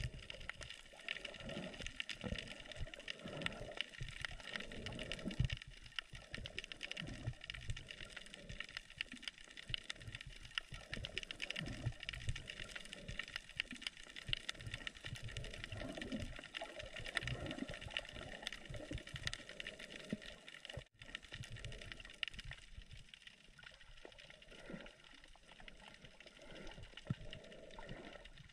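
Water sloshing and gurgling around a camera at or below the surface while snorkeling, with irregular low thumps of moving water under a steady high hiss.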